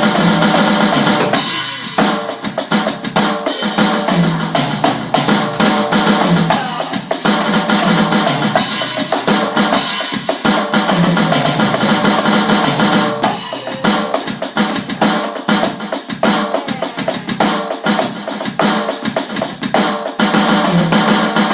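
Drum kit played in fast triplet fills around the snare and toms using Swiss Army triplet sticking (a flammed right-right-left pattern), with bass drum and a steady cymbal wash over the top. The strokes are dense and continuous, with a short lighter stretch about two seconds in.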